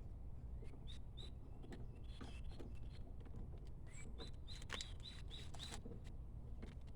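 A small bird chirping: a run of short high chirps, bunched together about four to six seconds in, with a few faint clicks among them over a steady low rumble.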